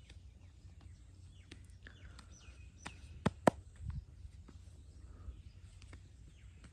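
Joints cracking under a massage: three sharp pops about three seconds in, the last the loudest. Scattered light clicks, faint bird chirps and a low steady outdoor rumble run under them.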